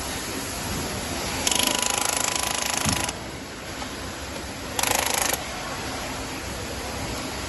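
Power tool running in two bursts with a rapid hammering rattle: the first about a second and a half long, the second a short half-second burst, over a steady workshop background noise.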